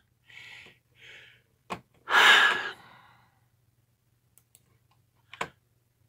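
A man sighs loudly about two seconds in, after a couple of softer breaths. There is a sharp click just before the sigh and another near the end.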